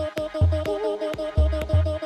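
Electronic dance music played in a DJ set: a steady beat of about four hits a second over deep, pulsing bass notes and a repeating synth note.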